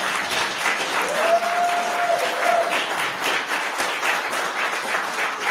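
An audience applauding steadily, dense clapping from many hands, with one long held note rising above it about a second in.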